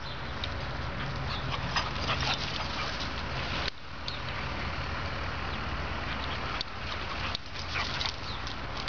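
Dogs at play: short, sharp dog sounds now and then, clustered about two seconds in and again near the end, over a steady outdoor hiss and low rumble.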